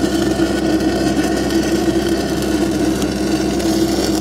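Stick-welding arc from a 6010 rod, crackling steadily as it fills a hole blown through a thin-ground root bead in steel pipe, with a steady machine hum beneath.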